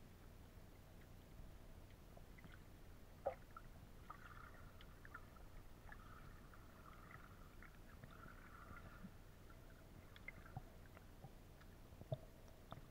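Faint, muffled underwater sound from a camera's waterproof housing: a low rumble with scattered small clicks and ticks, one sharper click about three seconds in and another near the end.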